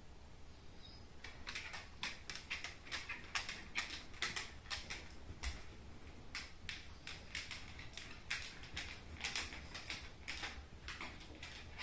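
Basset hound's claws clicking on a hardwood floor as it walks about: an irregular run of light clicks, several a second, starting about a second in.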